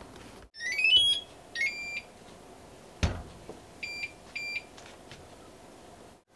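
Induction cooktop's touch controls beeping. A short rising chime sounds as it switches on, then a single beep, then two more beeps about half a second apart as the touch panel is pressed. A single knock comes about three seconds in.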